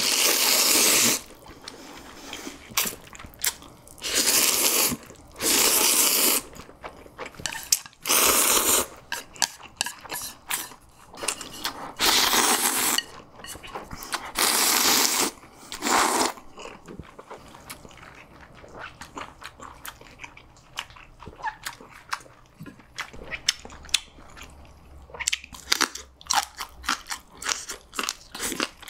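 Close-miked eating of noodles: several loud slurps, each about a second long, in the first half, then steady chewing with many small wet clicks and smacks.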